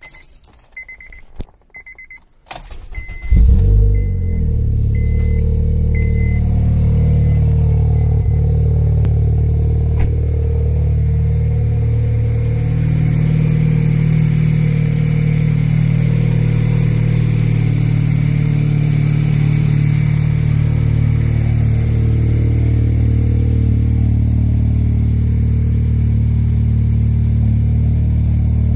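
Honda Civic's 1.8-litre R18 four-cylinder being cold-started: key and switch clicks and a repeating high beep that fades, then the engine cranks and catches about three seconds in with a loud flare. It settles into a steady idle heard through an aftermarket header, test pipe and straight pipe to a Nismo muffler.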